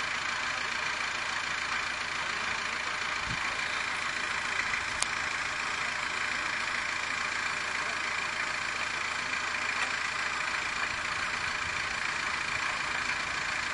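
A vehicle engine idling steadily, with a small click about five seconds in.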